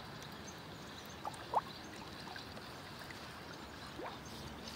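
A crucian carp jumping and splashing at the surface of a pond: faint, brief water splashes, the loudest about a second and a half in and another near the end.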